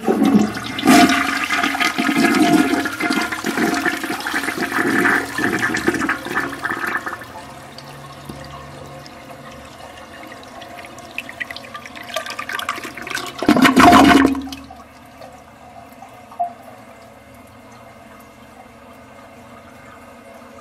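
Toilet flushing: a loud rush of water for about seven seconds that dies down to a quieter flow, then a short loud surge about two thirds of the way through, after which only faint, steady running water is left.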